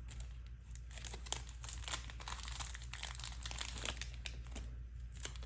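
Plastic card sleeves and packaging crinkling and rustling as a stack of trading cards is handled and unwrapped, with many small crackles throughout.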